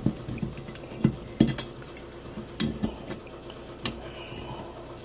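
Sharp metal clicks and clinks, about six spread over a few seconds, as the MZ ETZ 250 gearbox's shafts, gears and selector drum are held together and fitted down into the crankcase half.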